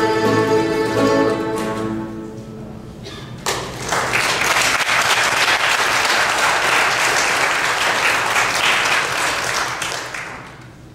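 A mandolin ensemble holds its final chord, which rings out and fades over the first two seconds or so. About three and a half seconds in, audience applause breaks out suddenly, carries on steadily and dies away near the end.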